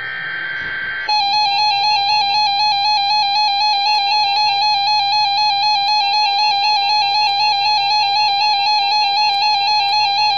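Emergency Alert System broadcast signalling: a brief buzzy digital data burst (the SAME header), then the EAS attention tone, a loud, steady electronic tone with a slight regular warble, for about nine seconds. It marks the start of a new alert, here a tornado warning.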